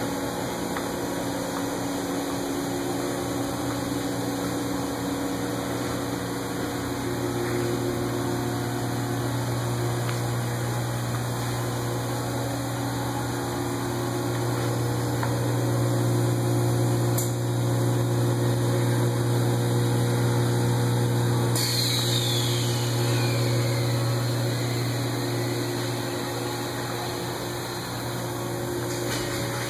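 Steady hum of running factory machinery, a strong low drone with several steadier higher tones above it, swelling a little past the middle. About two-thirds of the way in, a faint high whistle slides down in pitch.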